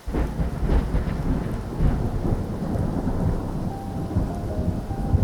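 Thunder cracks suddenly and rumbles heavily over steady rain, the rumble easing off toward the end. A few soft notes of music come in over the rain near the end.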